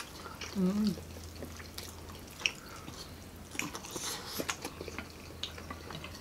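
Close-up eating sounds: wet chewing and mouth clicks with small knocks of spoons and fingers on plates, and a brief hummed "mm" just under a second in. A low steady hum lies underneath.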